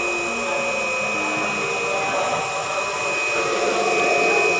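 Bench grinder running with a steady high whine while an HSS lathe tool bit is held against the abrasive wheel to grind its clearance angle, with lower grinding tones wavering as the pressure changes.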